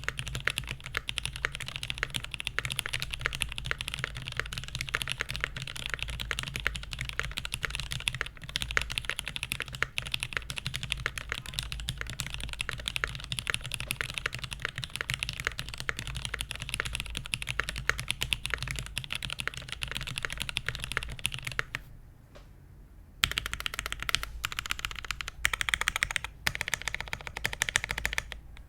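Continuous typing on a top-mount mechanical keyboard with lubed vintage Cherry MX Black linear switches on a brass plate and GMK keycaps. The keystrokes run on densely, stop for about a second about three quarters of the way through, then resume with a few louder, quicker flurries.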